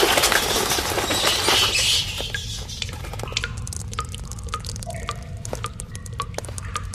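Water dripping in scattered single drops over a steady low hum. A loud rushing noise fades out during the first two seconds.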